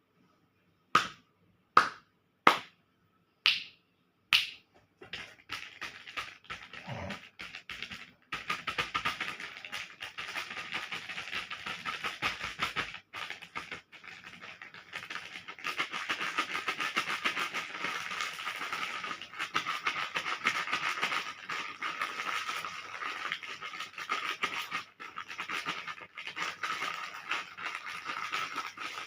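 Plastic candy wrappers being handled: five sharp clicks about a second apart, then dense continuous crinkling from about five seconds in.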